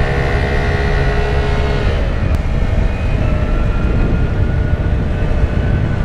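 Small motor scooter engine running as it is ridden, over heavy low wind and road rumble. Its pitch drops about two seconds in as it slows, then it runs on at a lower steady speed.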